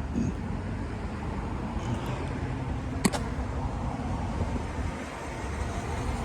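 Steady low rumble of road traffic, with one sharp click about three seconds in.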